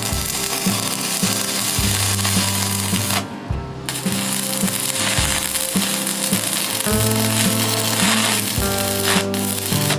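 Crackling, sizzling hiss of electric arc welding on steel, cutting out briefly about three seconds in, over background music.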